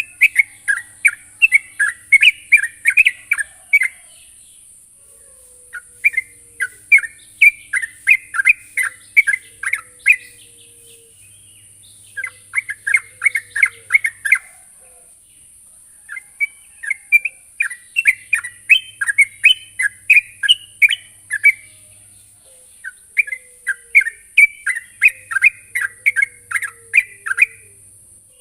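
Yellow-vented bulbul (trucukan) singing: bubbly, chattering phrases of quick notes given in five bursts with short pauses between them, over a steady high hiss.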